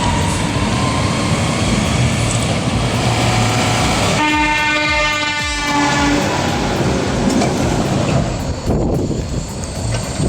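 Heavy truck running, with one long air-horn blast of about two seconds near the middle.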